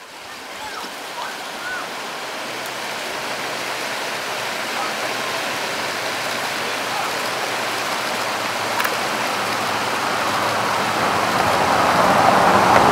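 Creek water rushing over rocks in whitewater rapids: a steady rush that fades in from silence at the start and grows slowly louder toward the end.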